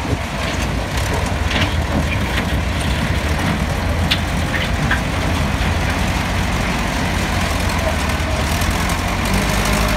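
Massey Ferguson 265 tractor's diesel engine running steadily with a low drone, alongside the tractor driving the peanut sieving machine. A few short clicks and scrapes come in the first half.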